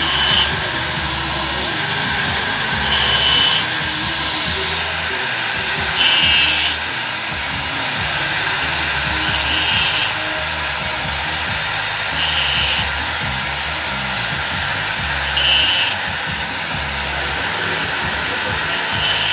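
Electric angle grinder running steadily with a high whine, used to cut through a too-small metal ring, with a short higher rasp about every three seconds.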